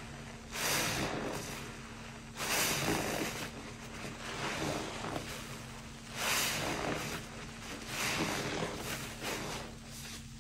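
A large, coarse-pored sponge soaked with soapy water squeezed repeatedly by hand over a basin of suds: wet squelching and fizzing foam, rising in surges every couple of seconds.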